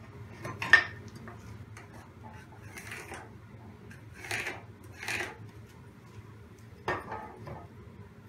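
A steel rule set down on an OSB board with a sharp metallic knock, then three short scratchy strokes of a pencil marking along it, and another light knock late on.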